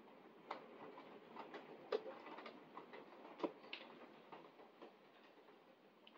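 Rain during a thunderstorm, heard through a window: a faint steady hiss with irregular drops ticking on the glass and frame. Two sharper taps stand out, about two seconds and three and a half seconds in.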